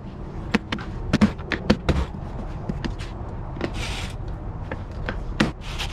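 Plastic side cover of an inverter generator being pressed back on, a run of sharp clicks and knocks as its clips snap into place, then a cordless drill driving the cover screws in with short whirring runs.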